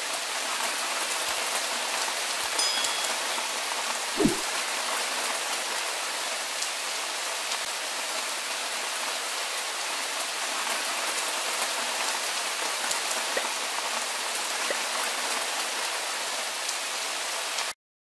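Heavy rain falling steadily in a downpour, an even hiss of drops on the ground and foliage. There is a brief low thump about four seconds in, and the rain cuts off suddenly near the end.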